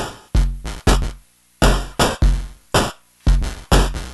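Analog modular drum pattern: unfiltered synthesized hi-hats from the vcNOIZ voltage-controlled noise oscillator, short crisp noise hits in an uneven, randomly gated rhythm, with an analog bass drum thumping under several of them.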